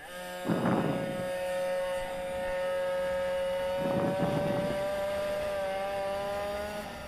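Water-cooled 40cc two-stroke racing minibike engine held at high revs under full throttle, a steady high-pitched note that climbs slowly. Two short rough bursts break in, about half a second and about four seconds in.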